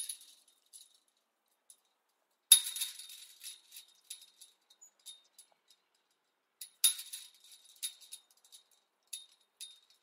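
Metal chain-link fence rattling: two sharp jolts, about two and a half and seven seconds in, each followed by a jangling rattle with a thin metallic ring that dies away over a few seconds, and lighter rattles in between.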